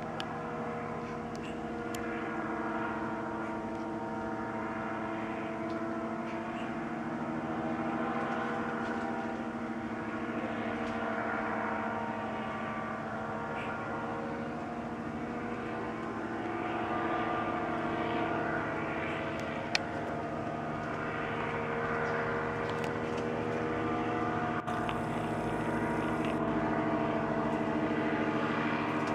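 Powered paraglider's engine and propeller running steadily overhead: a continuous buzzing drone whose pitch shifts slightly as it passes, growing a little louder in the last third.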